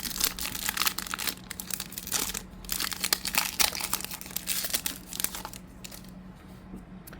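A trading-card pack wrapper being torn open and crinkled by hand, a dense crackling run that thins out about five and a half seconds in.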